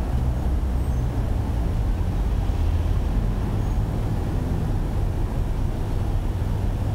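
City street traffic: cars driving past close by, a steady low rumble of engines and tyres.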